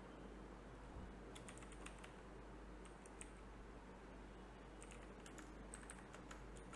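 Faint typing on a computer keyboard: scattered keystroke clicks in short runs, with pauses between them.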